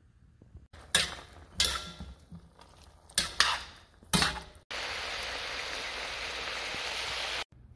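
Several sharp knocks and scrapes in the first half. Then cubes of browned chuck roast with red potatoes sizzling in a pan, a steady hiss that starts and stops abruptly.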